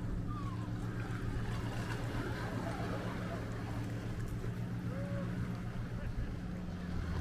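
Steady low rumble of wind on the microphone, with faint distant voices.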